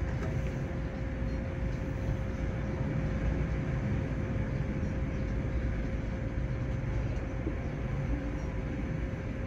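Inside a standing tram: a steady low rumble with a constant hum, and road traffic passing outside.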